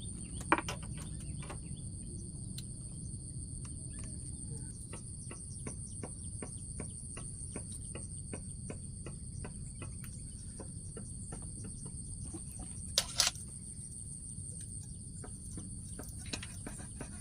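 Insects, crickets or similar, trilling in one steady high-pitched tone over a low rumble, with faint regular ticks and two sharp knocks, about half a second in and near thirteen seconds.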